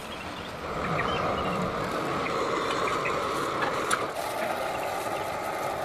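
Portable gas burner flame hissing steadily, with a few light metallic clicks from tongs handling the clay crucible cover.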